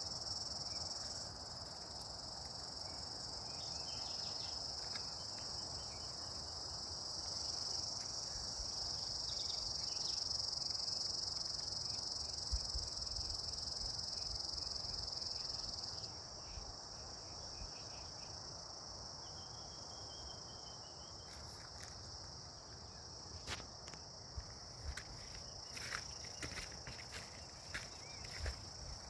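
Chorus of insects, such as crickets, chirring in one steady high-pitched drone that softens about halfway through. Scattered sharp clicks come near the end.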